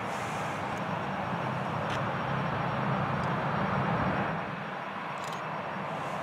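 Boeing 757-200 jet engines running, a steady rushing noise with a low rumble beneath, growing slightly louder until about four seconds in and then easing a little as the airliner turns on the runway for takeoff.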